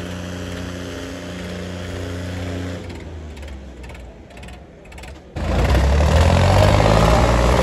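Diesel tractor engines running hard under load as two chained tractors pull against each other. A steady drone fades somewhat around three seconds in, then comes back abruptly much louder about five seconds in.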